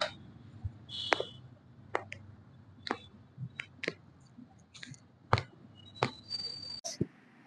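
A dozen or so sharp clicks and pops at uneven intervals, typical of joints in the lower back cracking as the spine is manipulated.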